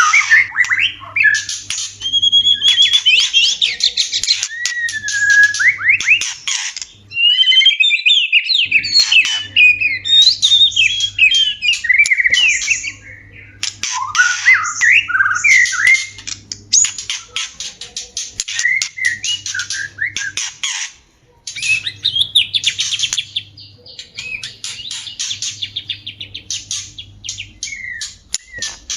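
White-rumped shama (murai batu) mating calls: a rapid, near-continuous stream of harsh chattering notes mixed with whistled rising and falling phrases, with brief pauses about 7 and 21 seconds in.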